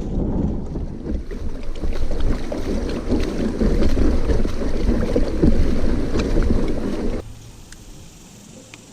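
Wind buffeting the microphone aboard a kayak: a loud, fluttering low rumble with a few faint clicks, which cuts off abruptly about seven seconds in, leaving a much quieter background.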